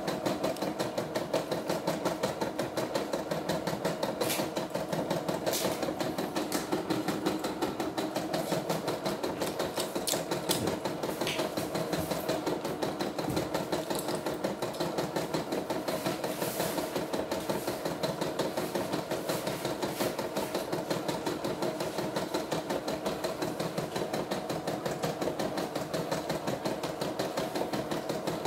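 CNY E960 computerized embroidery machine stitching a design at a steady, rapid needle rate, its speed set to 650 stitches a minute, with a sharper click now and then.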